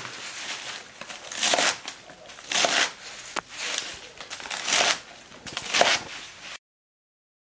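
Kitchen knife slicing through a bundle of Korean mustard greens (gat) on a wooden cutting board, about five cutting strokes roughly a second apart. The sound stops abruptly near the end.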